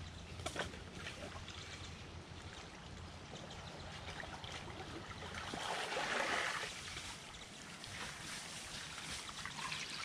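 Water trickling and splashing down a freshly cleaned concrete irrigation channel as the first muddy flow arrives, with a louder swell of water noise about six seconds in.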